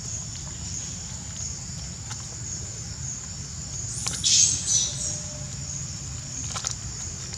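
A monkey's brief high-pitched squeals, two short calls about four to five seconds in, over a steady high hiss.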